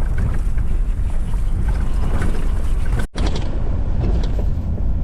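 Inside a small car driving along: a steady low rumble from the road and engine, with wind noise. It runs quietly, without the earlier hum, now that the four-wheel drive has been fully disengaged. The sound drops out for a split second about three seconds in.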